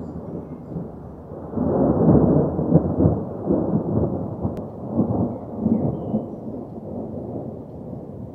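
Rolling thunder: a long rumble that swells about a second and a half in, with several sharper cracks, then slowly eases off.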